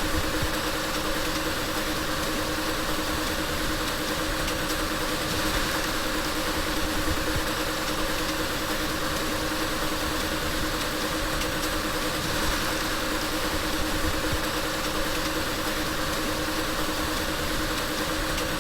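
Car engine idling steadily, an even hum with no revving.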